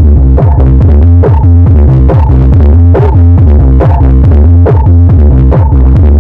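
Electronic dance music with a heavy, steady bass and a regular beat, played very loud through a 15-inch speaker in a fiberfill-stuffed cabinet as a sound test.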